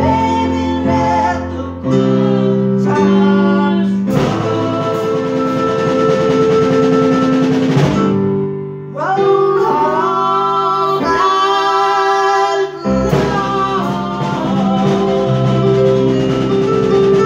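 A small band playing a song: two electronic keyboards and a drum kit, with a woman singing over held keyboard chords.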